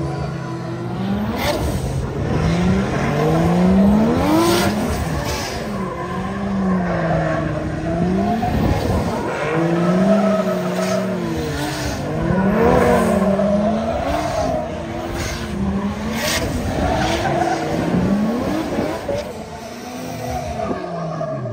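A drift car's engine revving up and down over and over as the throttle is worked through the slide, with tyres squealing and skidding on the tarmac.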